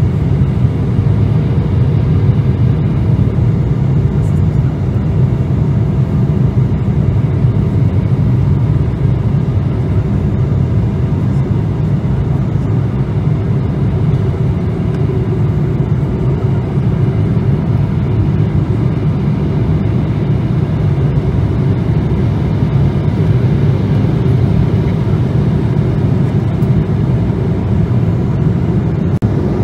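Airliner cabin noise heard from a window seat over the wing during descent: the steady low rush of the jet engines and airflow, with a few faint steady tones over it.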